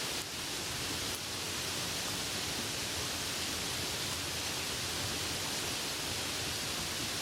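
Steady hiss of soft rain falling, an even wash of sound with no distinct drops or other events.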